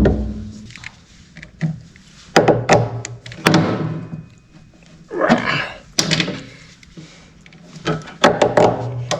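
Clunks and sharp knocks from hand tools, small grabber pliers, working stubborn fuel hoses off their fittings on a boat. The knocks come in several bunches spread across the few seconds.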